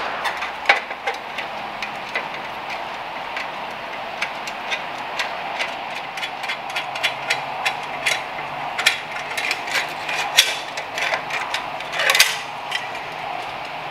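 Hand tools working on motorcycle exhaust fittings: irregular metallic clicks and clinks, some in quick ratchet-like runs, with a louder brief rasp about twelve seconds in, over a steady hiss. This is the work of loosening the exhaust's flange nuts.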